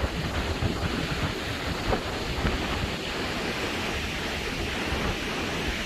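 Sea waves washing on a beach, a steady rushing surf, with wind buffeting the microphone in a low, gusting rumble.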